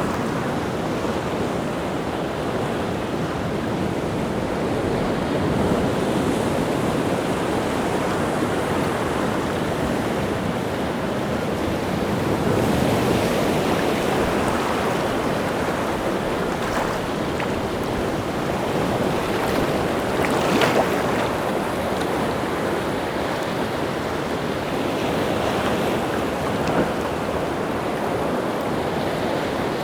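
Rough sea surf: waves breaking and washing in continuously, stirred up by wind, with one sharper wave crash about two-thirds of the way through.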